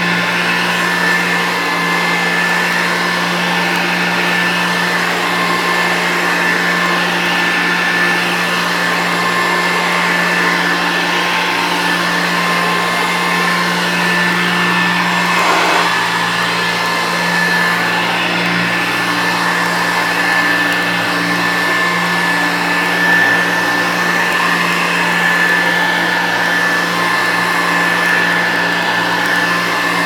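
1975 Premier cord-reel two-speed upright vacuum cleaner, a General Electric design, running steadily as it is pushed over carpet: a low motor hum with a steady high whine above it.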